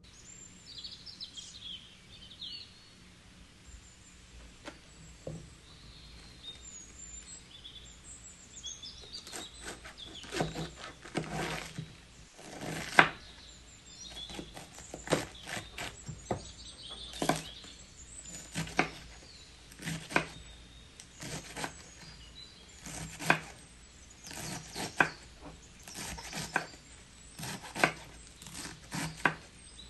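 A chef's knife slices through iceberg lettuce and knocks on a bamboo cutting board, one stroke about every second from about ten seconds in. Faint high chirps come before the chopping starts.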